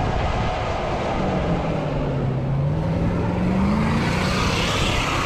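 Toyota Land Cruiser 4.7 V8 engine pulling under load as the truck ploughs through deep snow, its pitch rising and falling. Near the end comes a hiss of the tyres churning snow as it passes close by.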